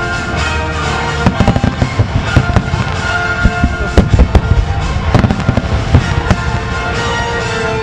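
Aerial firework shells bursting in quick succession, many sharp bangs, over music that plays throughout.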